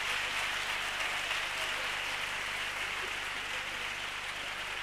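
Audience applauding steadily, the clapping easing off slightly toward the end.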